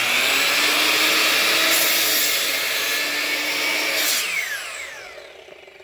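Mitre saw running at full speed while its blade is lowered through a clamped scrap board, the cut sounding harsher for a couple of seconds in the middle. About four seconds in, the motor is let off and winds down with a falling whine.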